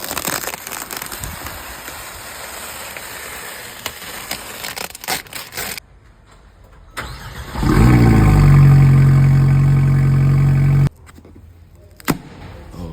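Alpine A110R's 1.8-litre turbocharged four-cylinder engine starting: the revs flare and fall back, then settle into a steady idle that cuts off abruptly about three seconds later. It is preceded by a stretch of noisy background with scattered clicks.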